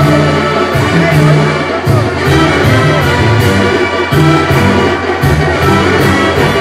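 Loud brass band music, with a low bass line moving in held notes and a steady percussion beat.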